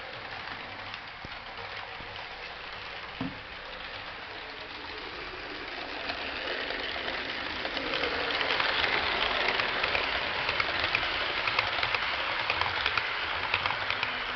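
Model train running on layout track: the Lima locomotive's electric motor and the wheels of the Electrotren coaches rolling over the rails with a fine, dense clicking. It grows louder from about six seconds in as the train passes close by.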